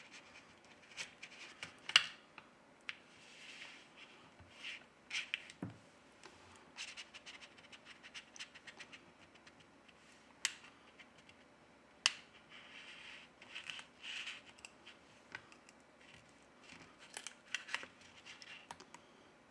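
Plastic card scraping and clicking along the edge of an LG Q60's glued back cover, slicing through the adhesive: faint, irregular scratches with sharp clicks.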